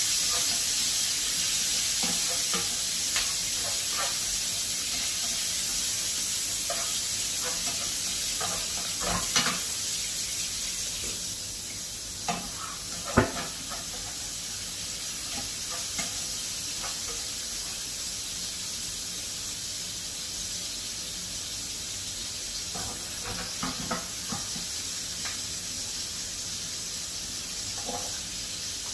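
Sliced red onions sizzling in a frying pan over a gas burner, with a steady hiss that eases a little about twelve seconds in. A cooking utensil knocks and scrapes against the pan now and then, loudest in one sharp knock about a third of the way through.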